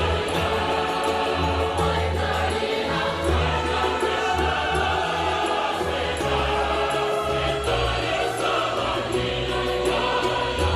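Background music: a choir singing held notes over a bass line that shifts every second or so, with a light, regular ticking percussion.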